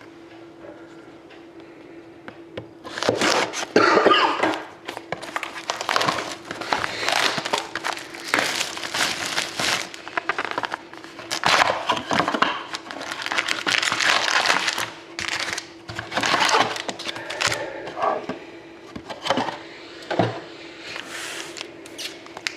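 Plastic wrapping crinkling and tearing in irregular bursts, with cardboard being handled, as a sealed box of trading cards is opened; a faint steady hum runs underneath.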